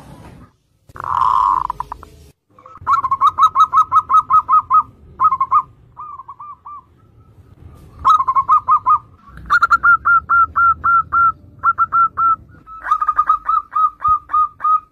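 Zebra dove (perkutut) song: rapid strings of short, hooked coo notes, about five a second, in several phrases broken by brief pauses.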